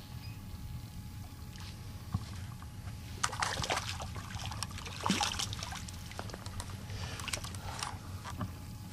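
Water splashing and sloshing in irregular bursts, the loudest about five seconds in, over a steady low rumble.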